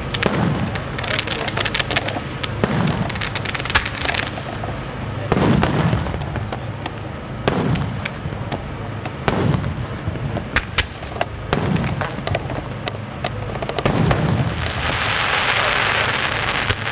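Aerial firework shells bursting one after another, with deep booms about every two seconds amid many sharp cracks and pops. A steady hiss comes in near the end.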